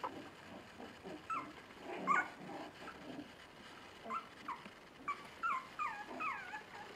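Five-week-old Bolonka Zwetna puppies tussling, with low grunts and growls and short, high-pitched, falling yelps and whimpers. The yelps come a few at a time early on, then in a quick run in the second half.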